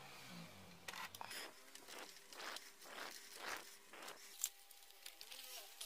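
Faint scraping and rubbing as the Kenwood KA-34's volume knob is twisted and worked off its potentiometer shaft, in about half a dozen short strokes, followed by a single sharp click about four and a half seconds in.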